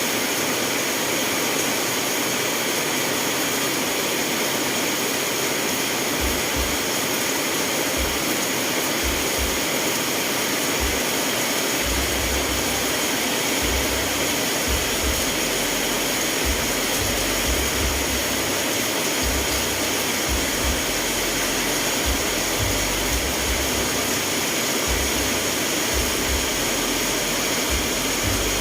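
Steady rainfall, an even hiss at a constant level, with low rumbles coming and going from about six seconds in.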